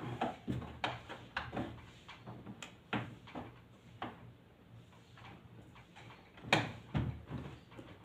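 Irregular light clicks and knocks of plastic as the casing of a Carrier wall-mounted split-type air conditioner indoor unit is handled and wiped with a cloth, with a louder cluster of knocks near the end.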